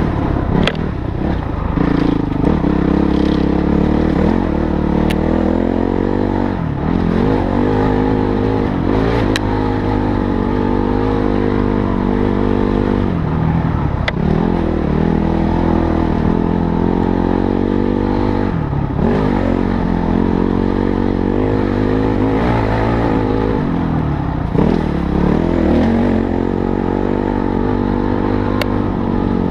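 Motorcycle engine running under load while riding, its pitch climbing and falling with the throttle and dropping briefly every five or six seconds. A few sharp clicks and knocks sound over it.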